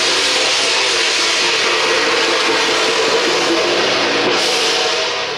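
Loud, steady din of a street temple procession, a dense hiss-like wash of noise with faint steady tones in it, easing off near the end.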